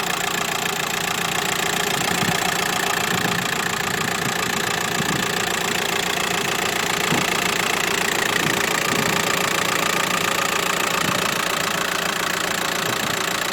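Volkswagen T5's 1.9-litre four-cylinder turbodiesel idling steadily, with the usual diesel clatter. It runs smoothly, without stray knocks or vibrations, a sign of an engine in good health.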